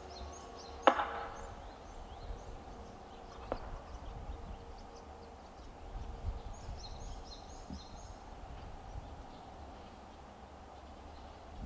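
The last note of a town's 5 pm outdoor chime fading out over the first five seconds or so. A sharp click comes about a second in and a smaller one near four seconds, with faint high chirps now and then over a low rumble.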